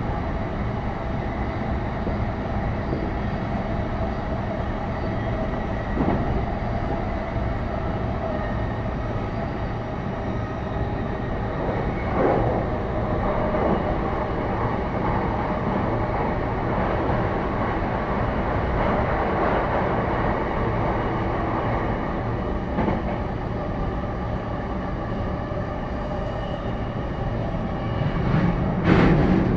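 A JR East E233-1000 series electric train car with a Mitsubishi IGBT-VVVF drive running between stations, heard from inside the car: a steady rumble of wheels on rail with steady tones running through it. A few single knocks come through, and there is a louder clatter near the end.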